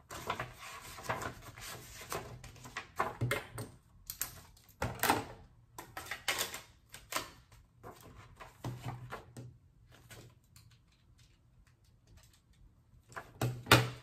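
Handling a paper notebook on a desk: irregular rustles and taps of pages being turned and pressed flat. They come thick and fast at first, thin out after about ten seconds, and a louder cluster of rustles comes near the end.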